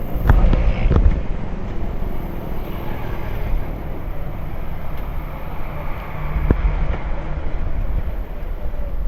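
Motorcycle riding through city traffic, its engine and road noise mixed with a steady wind rumble on the camera microphone. A few sharp knocks come near the start and again past six seconds.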